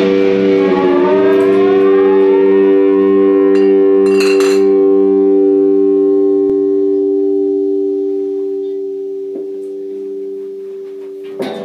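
Amplified electric guitars left ringing on a sustained chord, a few pitches gliding upward in the first couple of seconds, then holding steady and slowly dying away. A brief clatter about four seconds in, and fresh guitar strums start just before the end.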